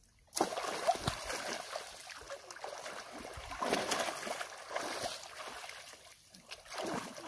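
People splashing and thrashing in shallow muddy water, striking it with sticks and lunging bodily into it. It starts suddenly about half a second in, then continues as repeated irregular splashes.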